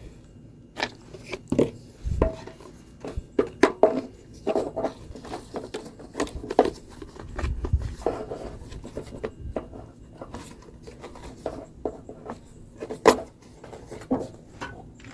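Scattered clicks, taps and knocks of hard plastic and metal parts being handled as an air filter and its cover are fitted onto a Briggs & Stratton lawnmower engine, with one sharper knock near the end.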